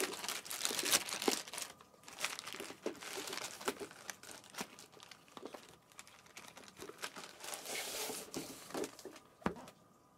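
Packaging of a collectible lightsaber prop being handled and opened: crinkling, rustling and tearing of wrapping with many small clicks, and one sharp knock near the end.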